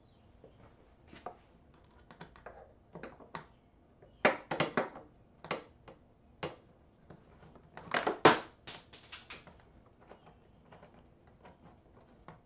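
Screws and hand tools clicking and knocking against a motorcycle's plastic trunk lid as screws are fitted by hand with a hex key. There are scattered clicks, with two louder bursts of rapid clicks about four and eight seconds in.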